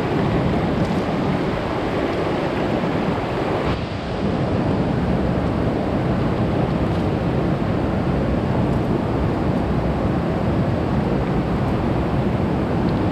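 Steady, loud rush of a river flowing over stones, dipping briefly about four seconds in.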